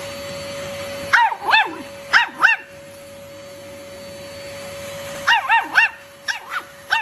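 A dog barking in short, high yips: two pairs about a second in, a quick run of four later on, and one more at the end.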